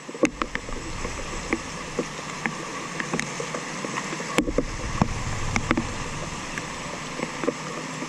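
Rainwater rushing steadily through a street drain, with many scattered sharp clicks and knocks over it.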